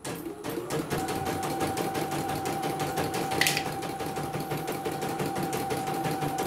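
CNY portable computerized embroidery machine stitching: rapid, even needle strokes with a steady motor whine that sets in about a second in. A brief hiss cuts in about three and a half seconds in.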